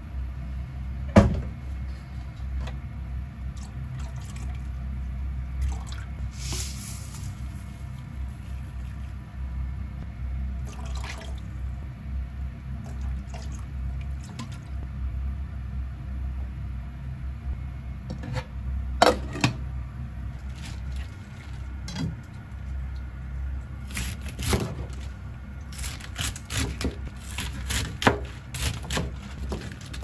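Kitchen cooking sounds over a steady low hum: liquid seasonings such as soy sauce poured into a pot of water, with sharp knocks of bottles and utensils. Near the end comes a run of irregular knocks, typical of a knife cutting greens on a plastic cutting board.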